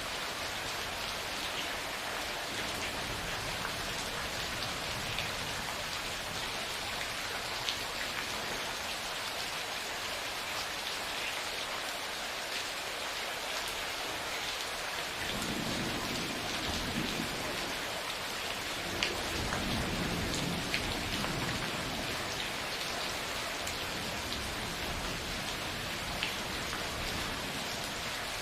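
Steady rain falling, with scattered sharp drop taps. About halfway through, a roll of thunder rumbles low for several seconds before fading.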